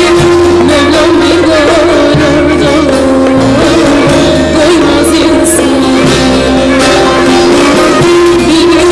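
A woman singing a Turkish folk song, long held notes with wavering, ornamented pitch, over instrumental accompaniment.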